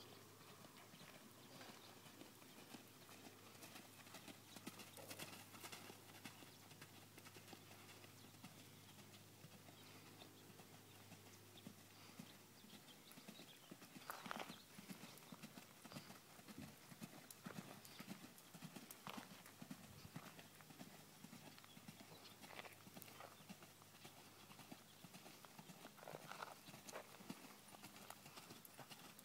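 Faint hoofbeats of a quarter horse loping on soft arena dirt, an irregular patter of muffled strikes with a few louder ones about halfway through. A low steady hum sits underneath for the first part.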